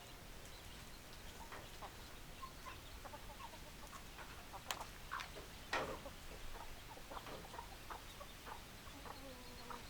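Chickens clucking: scattered short calls, with two louder calls about halfway through.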